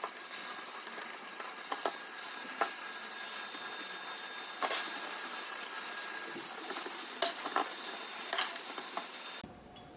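Light clicks and knocks of small parts being handled and fitted onto a mounting plate, about eight at irregular intervals, over a steady hiss with a faint high whine. The hiss drops away suddenly near the end.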